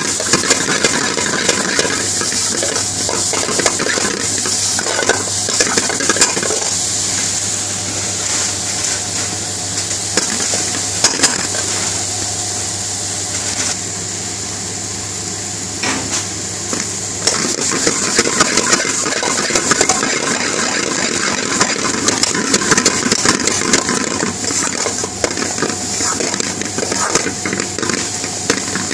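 Aubergine and onion strips sizzling as they fry in a metal pan, with a metal spoon scraping and clinking against the pan as they are stirred. The stirring eases off for a few seconds midway, leaving mostly the sizzle.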